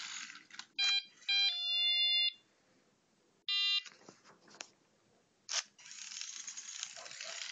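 Arduino-driven buzzer on a homemade robot beeping electronic tones: a short beep, then a longer tone that steps down to a lower pitch, and a short high beep about three and a half seconds in. The robot's small drive motors make a rough whirring near the start and through the last two seconds.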